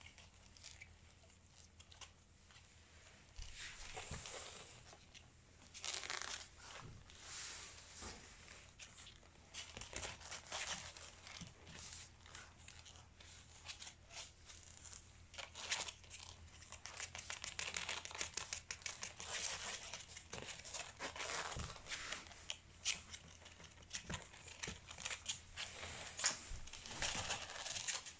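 Boston terrier puppies' paws and claws scuffling, scratching and clicking on a vinyl floor mat as they tumble and play together, a busy run of short scratchy sounds that grows denser in the second half.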